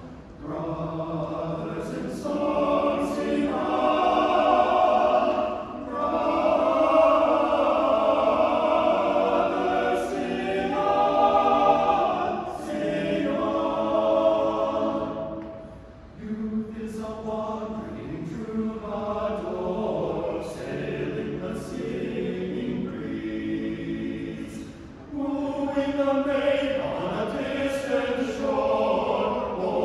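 Men's choir of about eleven voices singing a cappella in harmony. The singing comes in long phrases, with short breaks for breath about six, sixteen and twenty-five seconds in.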